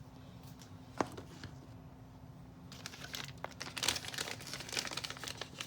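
Small plastic parts bags crinkling as they are handled and opened. There is a sharp click about a second in, and the crinkling starts about halfway through and carries on.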